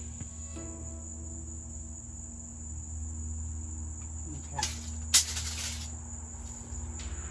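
A steady high-pitched insect trill, typical of crickets, over a low hum. About five seconds in there is a single sharp, loud crack, followed by a short rush of noise lasting under a second.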